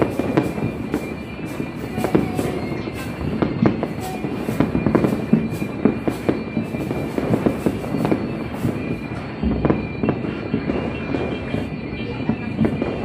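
Fireworks going off in a dense, unbroken run of overlapping pops, bangs and crackles, with a deeper thump about two-thirds of the way through.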